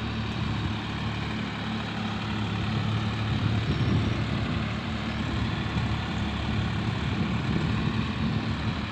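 Tractor's diesel engine running steadily under load while driving a rotavator (rotary tiller) through the soil, a constant low hum.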